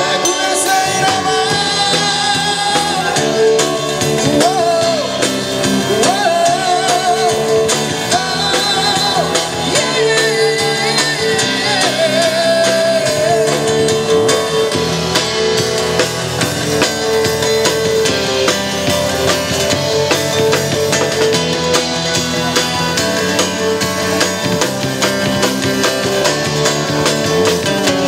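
A live band playing amplified: a man singing into a microphone over a drum kit, electric bass and guitar, with a steady beat.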